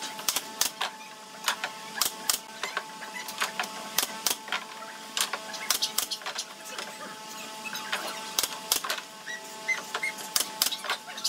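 Irregular sharp clicks and knocks of pallet-wood slats being handled and fitted together, a few each second, over a faint steady hum.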